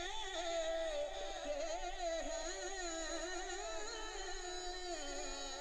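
A man singing a naat through a PA system, his voice sliding through long, ornamented wavering notes, with a faint steady high tone underneath.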